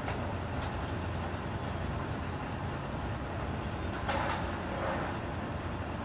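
Rear-loader garbage compactor truck's diesel engine running steadily at idle, with light clicks and knocks of rubbish being handled. About four seconds in, a short rustling clatter as bags go into the hopper.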